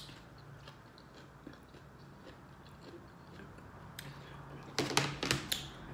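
Clear plastic serving platter being handled and moved, giving light clicks and crackles, with a cluster of sharper clicks near the end. A faint steady low hum runs underneath.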